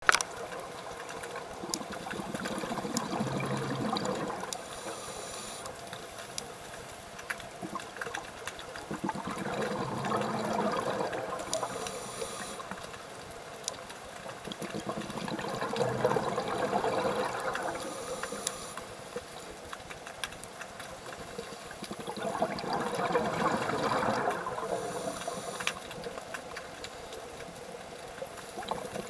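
Scuba diver breathing through a regulator underwater: long burbling exhalations of bubbles alternating with short hissing inhalations, four breaths about every six to seven seconds.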